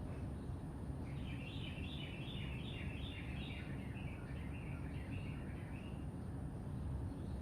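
A songbird singing a rapid string of short chirping notes for about five seconds, starting about a second in and stepping slightly lower in pitch as it goes, over a steady low rumble.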